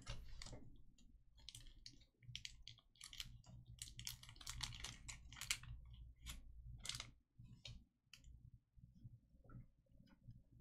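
Faint, irregular clicks and taps of trading cards being handled and set down on a table, over a low steady hum.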